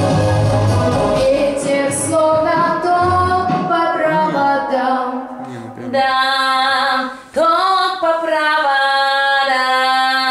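A girl singing a line of a song unaccompanied into a handheld microphone, in long held notes with a brief break about seven seconds in.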